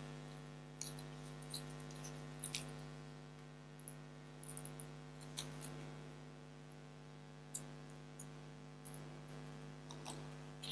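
Faint, scattered crinkles and small clicks of hands taping wired sugar-paste leaves and flowers onto a stem with green florist tape, over a steady electrical hum.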